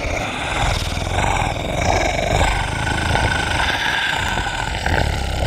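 A continuous, deep, rough animal growl, held without a break.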